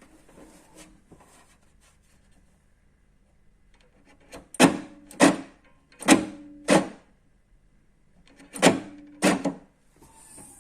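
Seat Ibiza boot lock mechanism clunking: six sharp metallic knocks in three pairs, the two knocks of each pair about half a second apart, after a few faint clicks.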